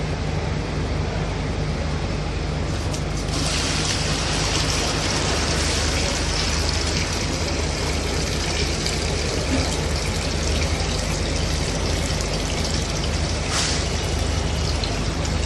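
Santoni HVR heavy-duty wet/dry vacuum cleaner running steadily, a motor hum under rushing suction air, which turns hissier about three seconds in.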